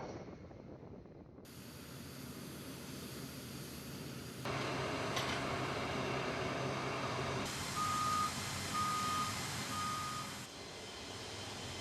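Vehicle and engine noise that changes abruptly several times, with a vehicle's reversing alarm beeping three times, about a second apart, in the last third.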